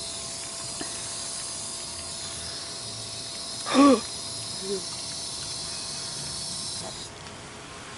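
Garden hose spray nozzle hissing steadily as it sprays water, cutting off about seven seconds in. A brief voice sounds about four seconds in.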